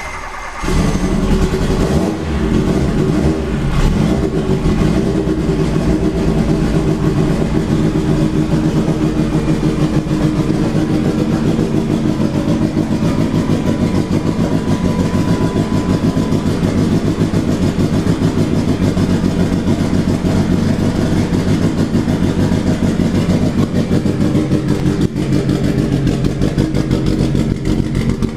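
Nissan 180SX's stroked CA20DET turbocharged four-cylinder race engine idling just after start-up, picking up about a second in and then holding a loud, steady idle with a rapid even pulse. The idle is not yet fully tuned and the plasma ignition is not running.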